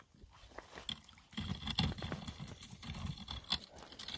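Handling noise from a fishing rod as a small brook trout is landed on the bank: irregular low thuds and rustling that start about a second and a half in.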